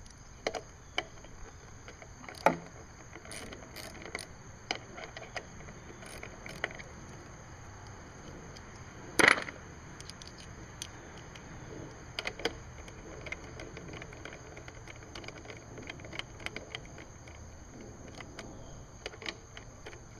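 Metal clinks and clicks of a multi-bit screwdriver and a loose driver bit being handled and swapped, scattered sharp clicks with the loudest about two and a half and nine seconds in.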